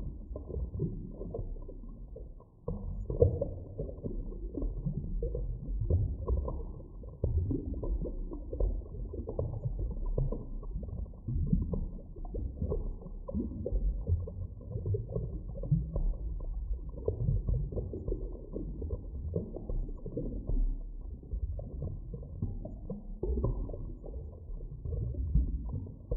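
Underwater ambience: a deep, muffled rumbling and churning that swells and fades irregularly, briefly dropping away about two and a half seconds in.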